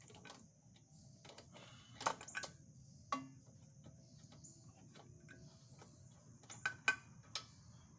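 Scattered clicks and light metallic knocks of a loosened spark plug being unscrewed and lifted out of a lawnmower engine, with a few sharper taps about two seconds in and again near the end.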